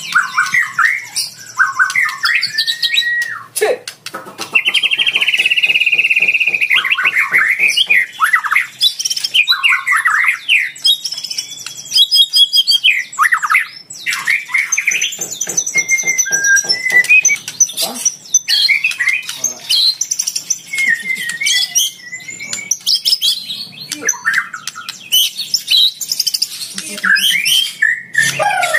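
White-rumped shama (murai batu) singing a loud, varied song of whistled slurs and notes, broken by several runs of fast rattling clicks.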